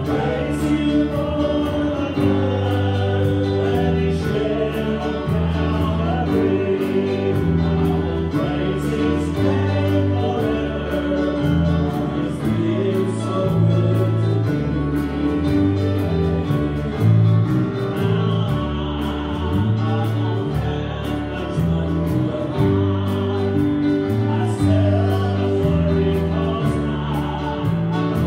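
Live church worship band playing a gospel song: several voices singing together over electric guitars, keyboard, bass and a drum kit keeping a steady beat.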